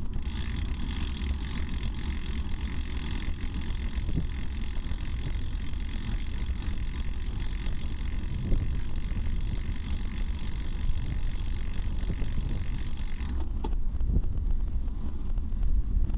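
Wind rumbling on the microphone of a racing bicycle, with a high, steady buzz from the rear hub's freewheel ratcheting while the rider coasts; the buzz cuts off suddenly about 13 seconds in, as pedalling resumes.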